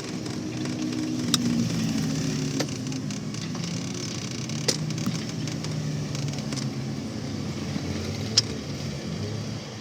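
A motor vehicle's engine running steadily, with a few sharp clicks over it, the last and loudest near the end.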